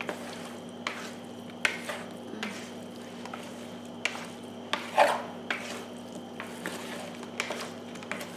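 Wooden chopsticks stirring raw chicken wings coated in flour in a plastic bowl: irregular clicks and scrapes as the sticks knock the bowl and turn the wings, the loudest about five seconds in.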